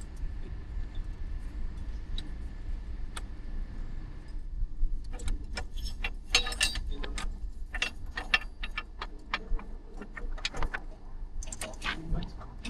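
Metallic clinks and knocks as a motorcycle's stock exhaust is worked loose from the header studs and lowered off the bike. The clicks are sparse at first, then come thick and fast from about four seconds in, over a steady low hum.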